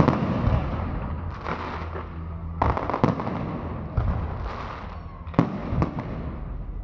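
Fireworks display: aerial shells bursting in a string of sharp bangs every second or so, over a crackling hiss from the glittering stars.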